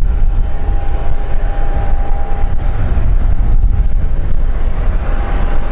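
Jet airliner's engines running at taxi power, a steady whine over a rumble, with heavy wind buffeting the microphone.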